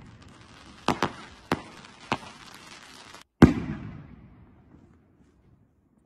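Aerial firework shells going off: four sharp cracks in the first two seconds, then a loud bang about three and a half seconds in as a shell bursts into a starburst, its boom dying away over the next second or so.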